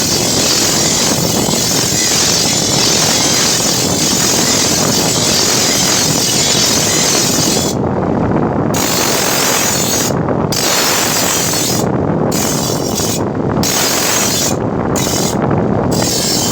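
Steady harsh grinding of steel against an abrasive wheel, sharpening a chaff cutter blade. About halfway through, the high hiss cuts out briefly six times while the lower grinding noise carries on.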